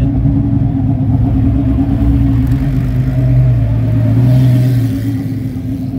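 GT race car engines running at low revs as the cars creep past close by; the engine note swells louder about three seconds in as one car passes nearest, then drops back near the end.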